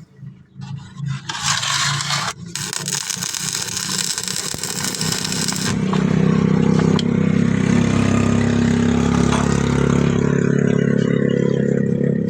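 Metalwork noise: a crackling, scraping sound that breaks off and resumes during the first few seconds, then a steady motor running from about six seconds in.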